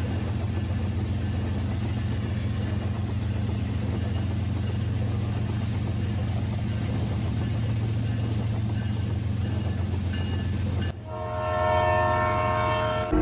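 Steady low train running rumble with a crackling edge. About eleven seconds in it breaks off abruptly and a held, horn-like chord of several tones sounds.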